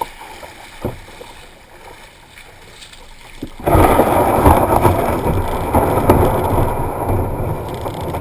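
Water lapping quietly around a kayak, then a little past halfway a sudden loud grinding scrape as the kayak's hull runs up onto a beach of broken shells and keeps scraping over them.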